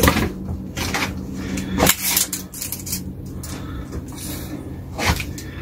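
A few short knocks and rattles of handling: a parsnip and a tape measure being picked up and moved about on a wooden bench. The loudest knock comes about two seconds in, another near the end.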